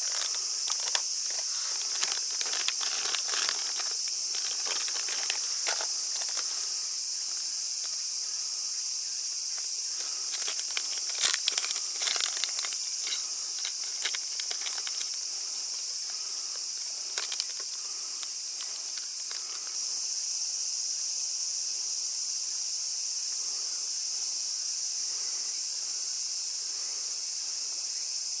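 A steady, high-pitched drone of insects singing, with the crinkling of plastic lure bags and clicks of a plastic tackle box being handled over it for the first two thirds; the handling stops about eighteen seconds in, and the insect drone grows a little louder soon after.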